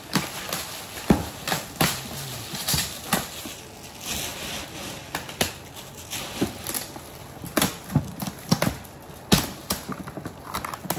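Gift boxes and their packaging being handled: irregular knocks, clicks and rustles.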